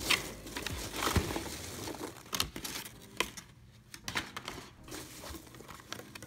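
Packing peanuts rustling and squeaking in a cardboard box as hands dig through them, with many small clicks and knocks. The rustle is loudest for the first few seconds and then thins out as a boxed bottle is lifted out.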